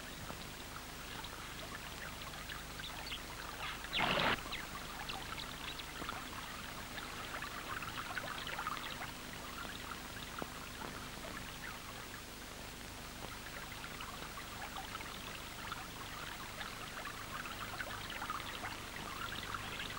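River water running, a soft steady trickling and bubbling with fine crackle, over a faint steady hum. A brief louder rush of sound comes about four seconds in.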